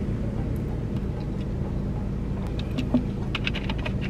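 Steady low hum of a car running, heard from inside the cabin, with a few small clicks and rustles in the last second and a half.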